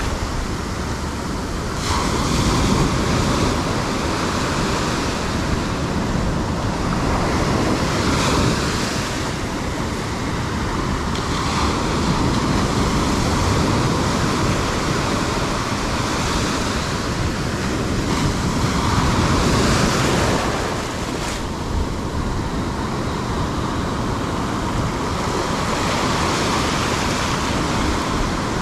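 Ocean surf washing up and over the sand in surges every few seconds.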